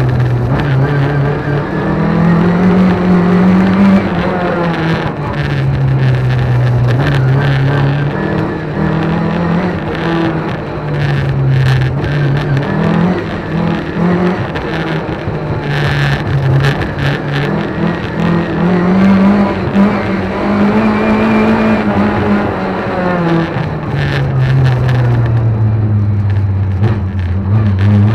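Lada 2101 rally car's four-cylinder engine heard from inside the cabin, driven hard, revs climbing and dropping back again and again through gear changes.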